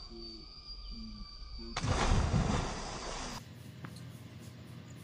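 A person plunging into pond water from a jump, making one loud splash about two seconds in that lasts about a second and a half.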